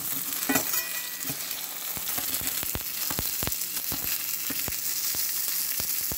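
Butter sizzling in a stainless steel frying pan under a toasted tuna melt, with frequent sharp pops and crackles. A metal slotted spatula presses the sandwich down, knocking against the pan about half a second in.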